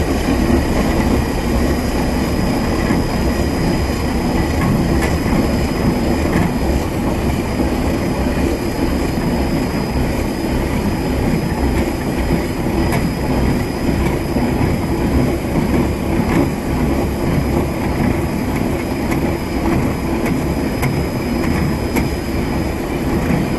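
Heavy radio-controlled concrete floor grinder running steadily as it grinds a thick resin coating off a concrete floor: a loud continuous rumble with a faint steady high whine.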